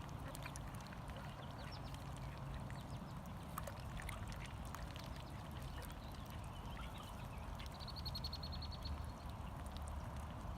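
Call ducks quacking faintly with scattered short calls, and a quick run of high chirps about eight seconds in.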